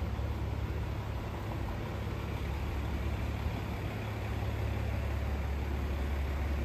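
Steady low rumble of vehicle engines in city street traffic, with a constant hiss of street noise over it.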